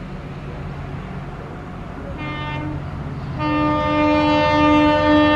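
EMD WDP4D diesel-electric locomotive approaching under power with its diesel engine running, sounding its air horn: a short blast about two seconds in, then a long, louder blast from about three and a half seconds in.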